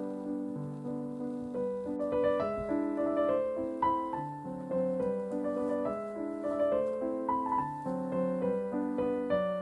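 Background piano music: a melody played over chords.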